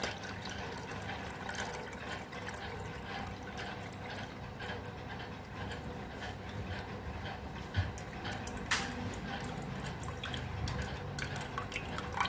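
Horsegram cooking water being poured and strained into a steel pot of tamarind water, trickling and splashing steadily, with a couple of light knocks of the vessel about two-thirds of the way through.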